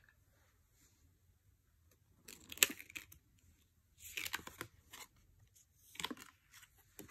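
Tarot cards being handled: about four short scraping swishes as cards are slid off the deck and laid down, the sharpest about two and a half seconds in.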